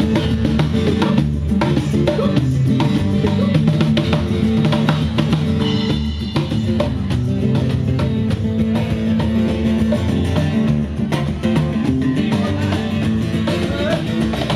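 Music with a drum kit keeping a steady beat under sustained guitar chords.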